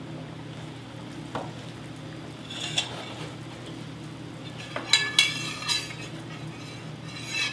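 Metal spoon stirring a melted wax-and-oil mixture in a stainless steel pot, scraping and clinking against the pot, with the loudest ringing scrapes about five seconds in and again near the end, over a steady low hum.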